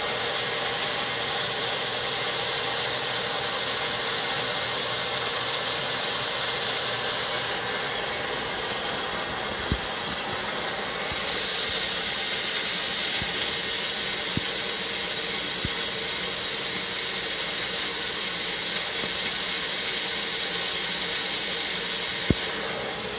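Steady mechanical hum with a strong high hiss, from machinery running, with a few faint clicks.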